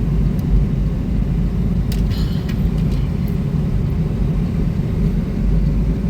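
2007 Chrysler Pacifica being driven, with a steady low rumble of engine and road noise and a few light clicks about two seconds in.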